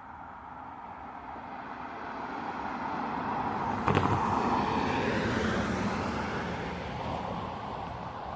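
A road vehicle passing close by: tyre and engine noise swells, peaks a little past the middle, then fades, with one sharp knock about four seconds in.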